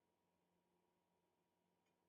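Near silence: only a very faint steady electrical hum.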